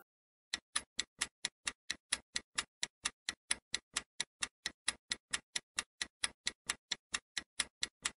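Ticking clock sound effect for a quiz countdown timer: even, sharp ticks at about four a second, starting about half a second in.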